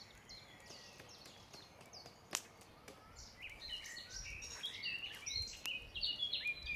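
Wild birds singing outdoors: short repeated chirping notes, sparse at first and busier in the second half, with one sharp click about two and a half seconds in.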